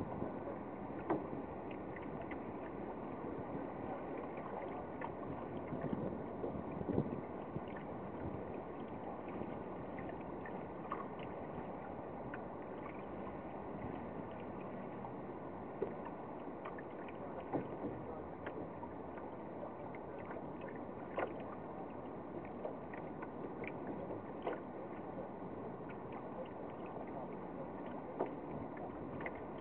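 Water washing along the hull of a small sailboat under way, a steady hiss with scattered light clicks and knocks.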